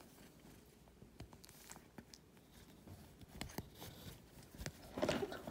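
Soft fabric rustling and small scratchy clicks as a tabby kitten burrows its face into a cotton blanket, with a louder flurry of rustling about five seconds in.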